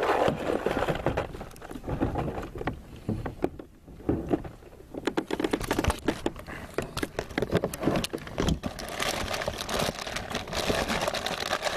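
Hands rummaging through fishing gear and a bag: irregular clatter, knocks and rustling, with a quieter stretch around four seconds in.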